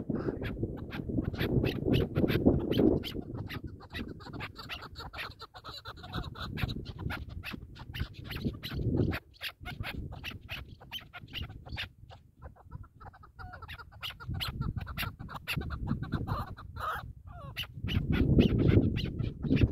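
Chukar partridges clucking in rapid runs of short, sharp chuk notes, with a brief pause partway through. A low rumble of wind on the microphone swells and fades beneath them.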